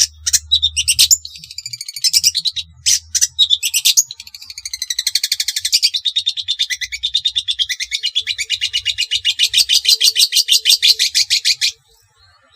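Long-tailed shrike (cendet) calling: a few sharp, harsh calls, then a long, rapid, evenly pulsed chattering trill lasting about seven seconds that stops abruptly near the end.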